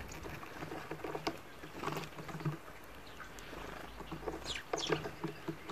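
Faint scattered clicks and scratches of European goldfinches pecking at and cracking black sunflower seeds in a feeder bowl.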